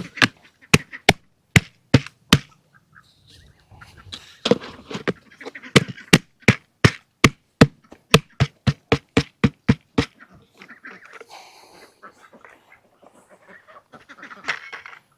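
Domestic ducks quacking in a long run of loud, short, evenly spaced quacks, about three a second and then quicker, stopping about ten seconds in. Quieter fowl calls and rustling follow.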